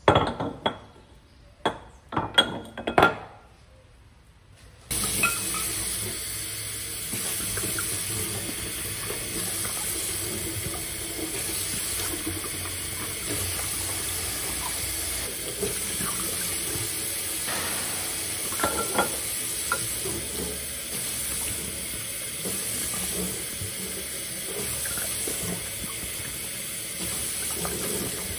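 Empty glass bottles knocking and clinking as they are handled over a stainless-steel sink, then about five seconds in a kitchen tap is turned on and runs steadily as the bottles are rinsed under it, with a few more glass clinks partway through.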